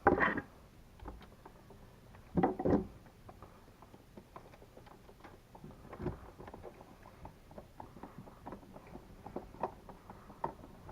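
Small clicks and taps of a wall outlet receptacle being pushed into its electrical box and its mounting screws lined up and started, with a louder knock at the start and two more about two and a half seconds in.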